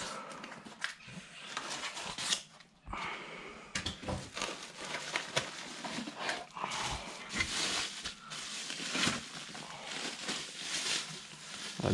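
Rustling and scraping of a cardboard box and its packing as it is handled and opened, with a few light knocks.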